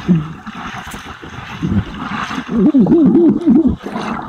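Muffled gurgling and sloshing of water heard through a body camera's microphone under water, with a wobbling warble from about two and a half seconds in.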